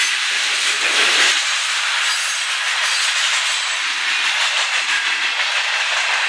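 Freight train cars (covered hoppers and tank cars) rolling past: a steady noise of steel wheels running on the rails, briefly louder about a second in.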